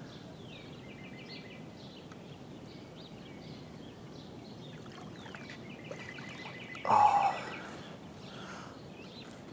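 Outdoor lakeside ambience with birds chirping while a hooked carp is played on rod and reel. A rapid run of clicks comes twice, and one short, louder noise comes about seven seconds in.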